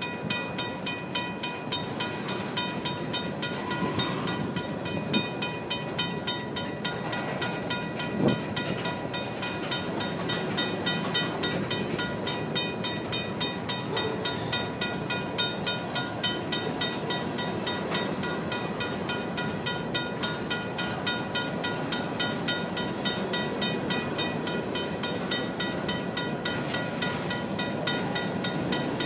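Loaded covered hopper cars of a grain train rolling past at close range, their steel wheels clicking over the rail joints and rumbling on the rails. Over it a level-crossing bell, the crossing's RACO mechanical bell, rings on steadily. One louder clank comes about eight seconds in.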